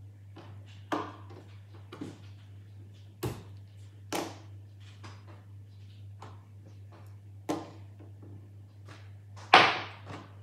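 Irregular taps and knocks of small fidget toys being handled and set down, a handful of sharp clicks with the loudest near the end, over a steady low hum.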